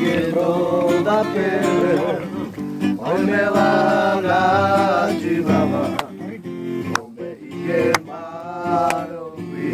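Acoustic guitar strummed while a man sings a melody in long, drawn-out phrases. A few sharp knocks break in during the second half.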